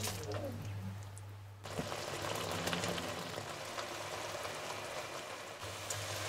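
Thick puréed vegetable mixture sizzling and sputtering in a wide pan on medium heat as its excess liquid cooks off, stirred with a wooden spoon. The fine crackling starts suddenly about two seconds in and keeps on steadily.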